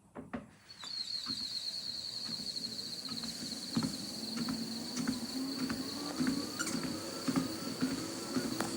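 UREVO SpaceWalk 3S walking-pad treadmill starting up and running: a steady high motor whine sets in about a second in, with a lower hum slowly rising in pitch as the belt speeds up. Through it comes a short squeak about twice a second, the squeak that shows up in this treadmill during use.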